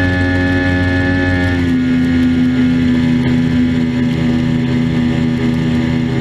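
Mercury 150 outboard motor running steadily at speed on a bass boat. Its note drops slightly about one and a half seconds in, then holds.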